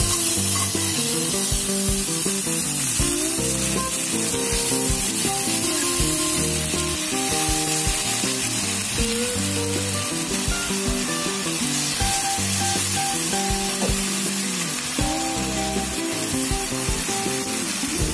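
Marinated chicken strips sizzling steadily as they fry in oil in a cast-iron skillet, kept on low heat because the sugar in the marinade burns easily. Background music plays underneath.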